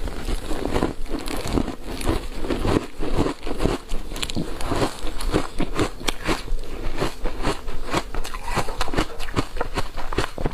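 Ice dusted with matcha green-tea powder being bitten and chewed: a dense, continuous run of crackling crunches.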